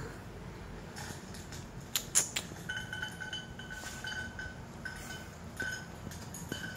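A couple of sharp clicks about two seconds in, then a Shih Tzu's thin, high whine that comes and goes for several seconds.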